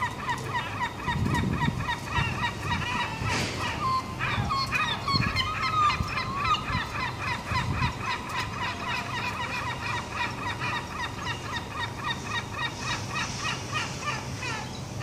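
A flock of gulls calling together, a dense chorus of rapid, repeated short calls from many birds at once, with a few low thuds in the first half.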